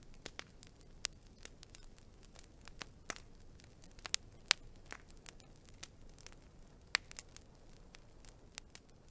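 Wood fire crackling: irregular sharp pops and snaps over a faint steady hiss, with the loudest snaps about four to four and a half seconds in and again around seven seconds.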